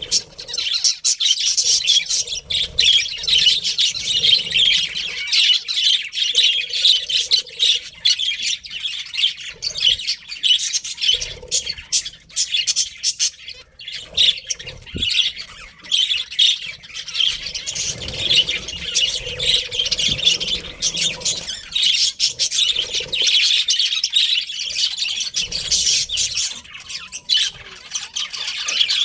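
A flock of budgerigars chattering and chirping without pause, many birds calling over one another.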